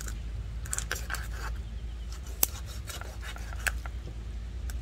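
Kitchen knife cutting through a raw chicken carcass to split it open, giving scattered short clicks and crackles, with one sharper click about halfway through.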